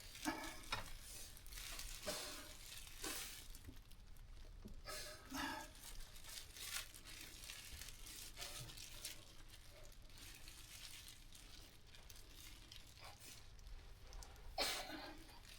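Faint, irregular rustling and scraping from handling a ewe during an assisted lamb delivery, as the lamb is worked loose. The scrapes come in short bursts through the first half, with a louder one near the end.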